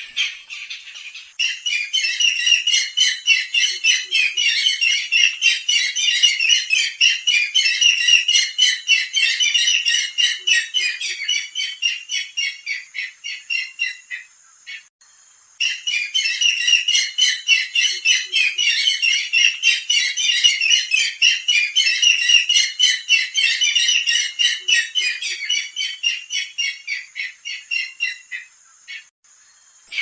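Barred rail calling: a loud, rapid series of harsh repeated notes in two long bouts, with a short break near the middle.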